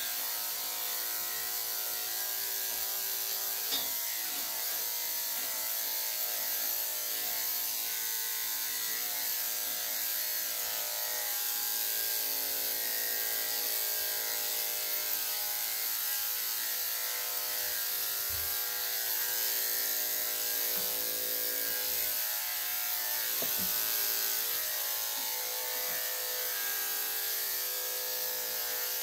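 Electric dog grooming clippers fitted with a #3¾ blade, running with a steady motor hum as they shave a dog's curly coat.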